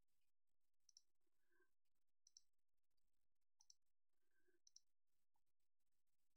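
Near silence broken by four faint computer mouse clicks, each a quick double tick, about a second or so apart.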